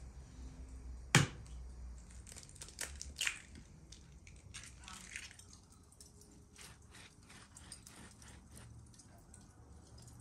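An egg cracked with one sharp knock against a bowl about a second in, then a few lighter cracks as the shell is broken open. After that come faint scattered ticks and clicks of utensils on the bowl and pan.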